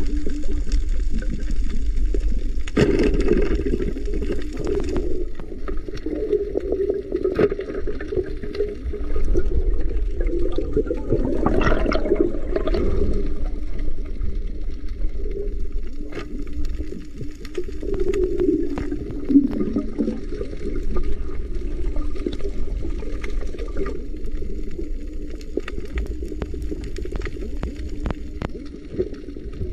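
Muffled underwater water sound from a camera in a waterproof housing: water swirling and gurgling, with scattered sharp clicks.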